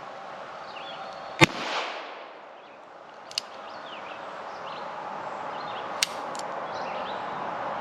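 Two sharp shots from a Ruger Single-Six single-action .22 revolver, about four and a half seconds apart, the first the louder with a short echo. A faint click comes between them.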